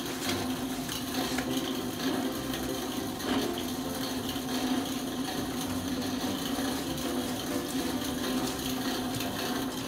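Wet splashing and rubbing as hands work lather into a soaked Shiba Inu's coat, over a steady rushing noise with a constant low hum and a few small clicks.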